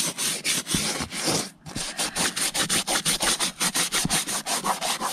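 A toothbrush scrubbing the pleated vinyl upholstery of a car seat with interior cleaner, in quick back-and-forth strokes several times a second, with a brief pause about a second and a half in.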